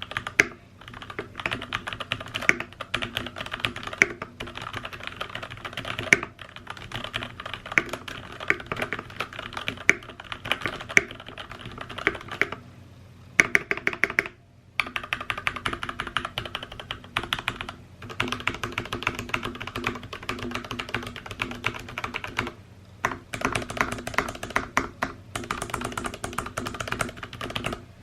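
Typing on a Ducky Miya Pro 65% mechanical keyboard with PBT keycaps: fast runs of keystrokes broken by a few short pauses, the longest about halfway through.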